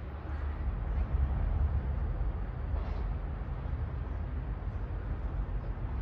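Outdoor background noise: a steady low rumble with a faint hiss above it.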